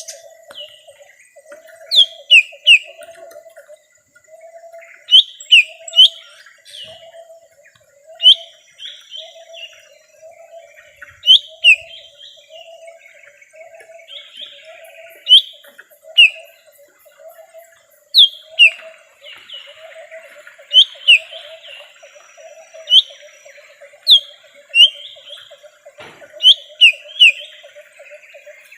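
Cucak ijo mini leafbird lure call: loud, sharp whistled notes that sweep quickly in pitch, coming in quick groups of two or three. A lower, rapidly pulsing chatter runs continuously underneath.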